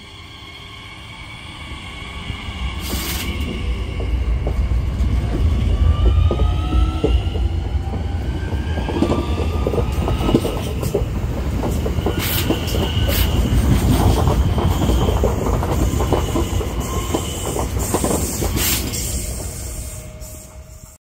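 Double-deck electric multiple unit (Regio 2N type) running along the platform. Its rumble builds over the first few seconds, with a rising electric motor whine and repeated wheel clicks over the rails. It fades near the end.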